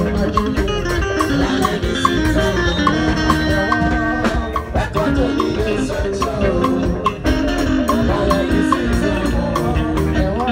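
Live band playing an upbeat gospel number with a steady percussive beat.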